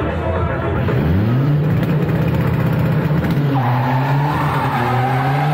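Drag-racing car's engine revving up about a second in, then holding high revs, with a high squeal joining about halfway through and the revs climbing again near the end.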